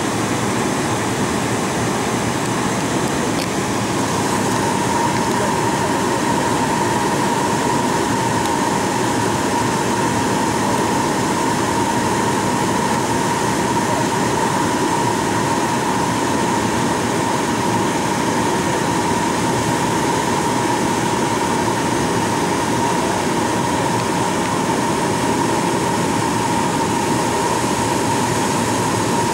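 Steady cabin noise inside a Boeing 737-800 on the approach: an even rumble of airflow and the CFM56-7B engines, with a steady whine joining in about two seconds in.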